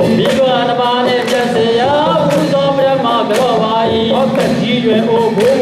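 Thangyat: a group of voices singing a Burmese Thingyan New Year chant together, the melody wavering and continuous.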